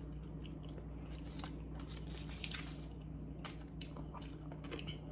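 Quiet, close-up chewing of fast food, a scatter of small wet clicks and crunches over a steady low hum.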